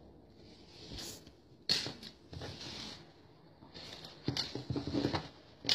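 Fabric and sewing pieces being handled: intermittent rustling with a few short, sharp clicks, the sharpest near the end.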